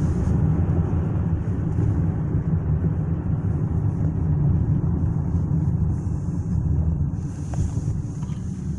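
Steady low rumble of a car being driven, heard from inside the cabin: engine and road noise, easing slightly near the end.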